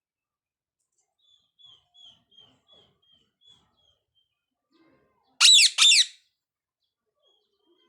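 A parrot gives a string of faint short chirps, about three a second, then two loud whistled calls in quick succession about five and a half seconds in.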